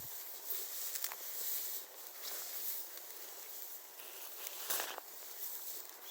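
Footsteps on a trail: a few uneven crunching steps over a steady hiss of outdoor background noise.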